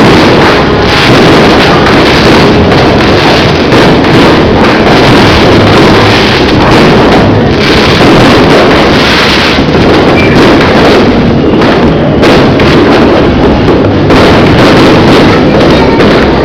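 Fireworks display going off without pause: a dense run of bangs and crackles, so loud that the microphone is overloaded throughout.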